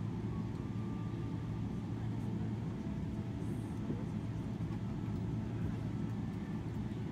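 Steady low rumble inside the cabin of a Boeing 777-300ER taxiing on the ground, engines at idle.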